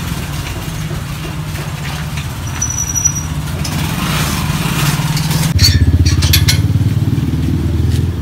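A motorcycle engine running close by, slowly growing louder, with a lower and stronger note from about five and a half seconds in.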